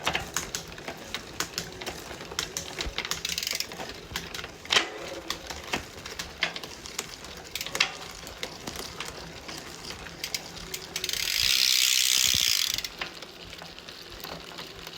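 Trek Xcaliber mountain bike's SRAM drivetrain being cranked and shifted down through the rear cassette to test a rear derailleur limit-screw adjustment: a run of irregular ratcheting clicks from the freehub, chain and shifter. A hiss of about two seconds comes about eleven seconds in.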